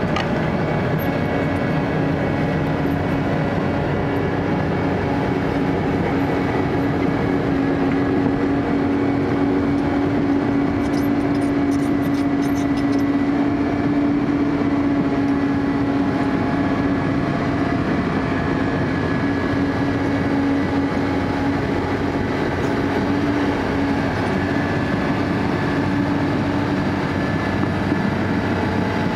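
Caterpillar 320D tracked excavator travelling on its steel crawler tracks. Its six-cylinder diesel engine runs steadily under the noise of the moving tracks, with a steady whine through the whole pass.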